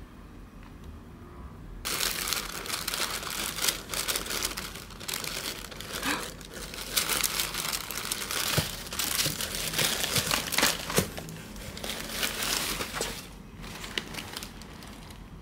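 Packaging crinkling and rustling as it is handled, an irregular crackle with sharp snaps that starts about two seconds in and stops near the end.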